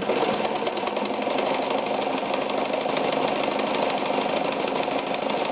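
Ideal 601 sewing machine starting suddenly and running steadily at speed, a fast, even mechanical clatter.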